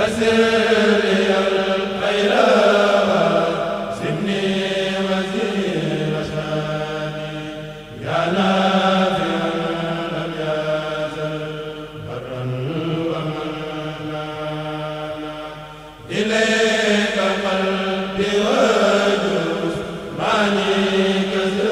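Unaccompanied male chanting of Mouride religious poems (khassaids) by a kurel chanting group, amplified through microphones. Long, melismatic held phrases start afresh about every four seconds.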